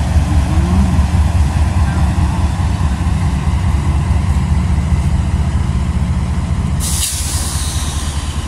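Diesel locomotive idling with a steady low rumble. About seven seconds in comes a short, sharp hiss of released air, typical of the air brake system venting.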